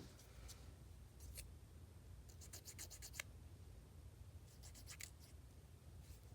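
Faint quick scratching strokes in a few short bursts, from hands working nail polish strips onto fingernails, with a light tap at the start.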